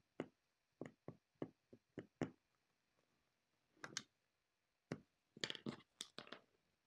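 Quiet, scattered light ticks and taps of sewing work on a cutting mat while fabric is marked, with a short scratchy scuffing about four seconds in and a longer run of it near the end.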